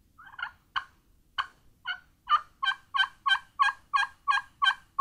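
Turkey pot call played with a striker on its ceramic surface, imitating a hen turkey, a little higher pitched. A few scattered short clucks come first, then from about two seconds in a steady, evenly spaced run of yelps, about three a second.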